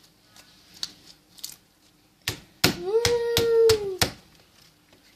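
Slime being squeezed and stretched in the hands, with faint clicks and then a burst of sharp pops and snaps. Over the pops comes one drawn-out pitched sound that rises, holds for about a second and falls away.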